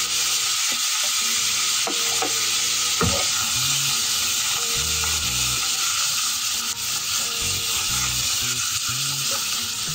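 Beef chunks sizzling as they fry in hot sesame oil with minced garlic, a steady dense hiss while the pan is tossed over the gas flame.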